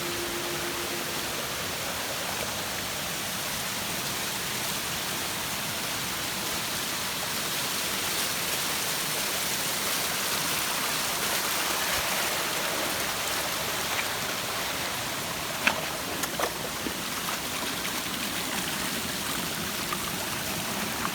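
A waterfall's water rushing steadily, with a couple of sharp clicks about three-quarters of the way through.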